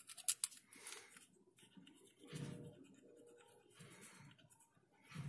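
Faint rubbing and scratching of knit-gloved hands working a rubber brake-caliper guide-pin boot onto a metal guide sleeve, with a few small clicks near the start.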